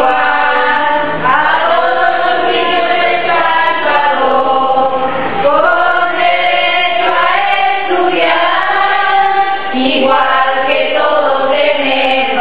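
A choir singing a slow song, with long held notes that glide from one pitch to the next.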